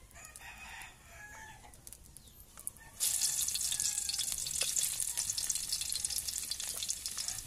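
A rooster crows faintly in the first second. About three seconds in, garlic cloves dropped into hot cooking oil in a wok set off a sudden steady sizzle that keeps going.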